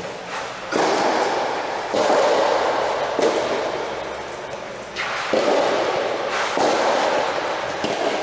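Sudden sharp hits about every second or so, each ringing on in a long echo: likely racket-on-ball strikes in a soft tennis rally, reverberating under a large dome.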